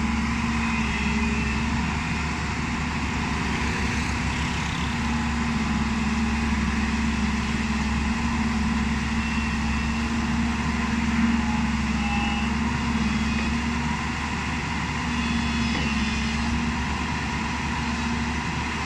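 Diesel engine of a JCB 205 crawler excavator running steadily while the machine moves on its tracks, with a continuous low hum.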